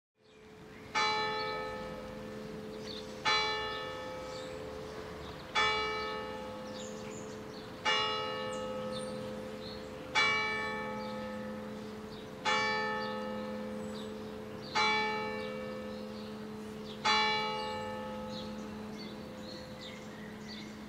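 A single church bell tolling eight times, one stroke roughly every two and a quarter seconds, each ringing on with a long humming decay.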